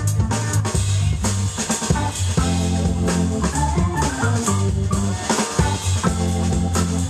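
Jazz organ trio playing live: organ with a walking low bass line, hollow-body electric guitar and a drum kit with cymbals.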